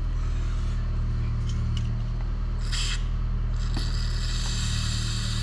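A short hiss, then about a second later a longer hiss lasting nearly two seconds, over a steady low hum, with a few faint ticks.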